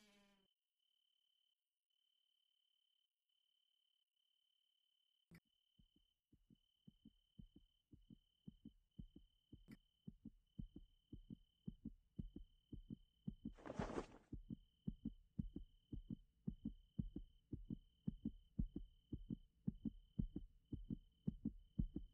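Heartbeat sound effect: after several seconds of near silence, low thumps begin about seven seconds in and grow steadily louder and faster. A faint high tone pulses on and off behind them, and there is a short hiss about fourteen seconds in.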